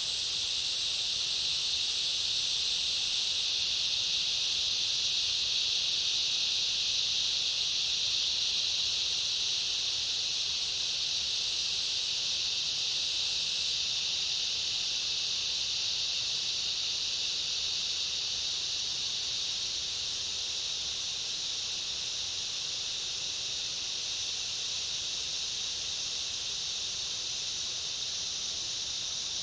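Cicada chorus with other insects: a steady high-pitched buzzing drone. A second, higher insect drone runs alongside it and stops about halfway through.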